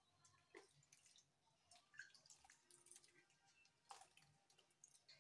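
Faint, irregular ticks of water droplets flicked by hand landing on a metal tray of soaked wheat seeds, a handful of drops a second or so apart.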